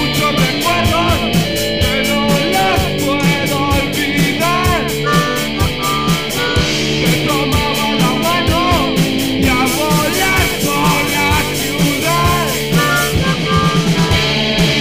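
A punk-blues rock cover song playing, with guitar, a steady fast drum beat with cymbals, and a harmonica weaving short bending phrases over it.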